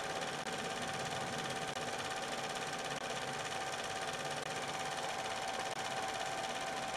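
Cine film projector running: a steady mechanical whirr with a constant whine above it.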